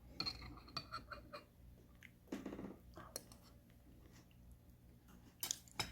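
A person chewing a piece of honey-preserved ginger: faint scattered wet mouth clicks and smacks, with a brief low murmur about two and a half seconds in.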